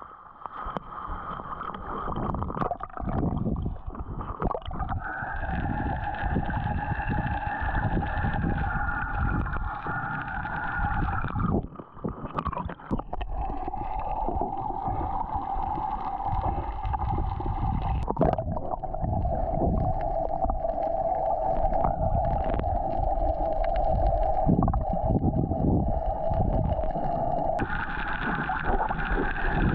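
Boat engine running with a steady drone over water and wind noise. The sound changes abruptly a few times.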